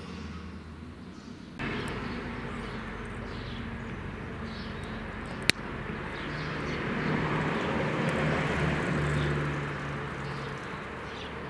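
Outdoor background noise with a low engine hum that swells and fades, a single sharp click about five and a half seconds in, and faint bird chirps.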